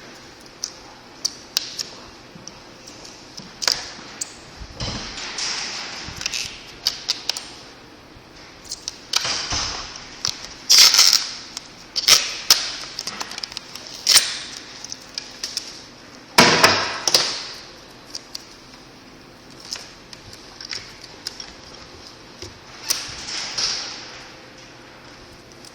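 Hands working on the plastic parts of an e-bike battery bottom: scattered clicks and taps, with several scraping, hissing sounds of about a second each, the loudest a little past the middle.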